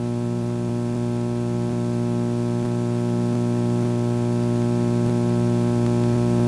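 A steady low hum with many overtones, holding one pitch and growing slightly louder.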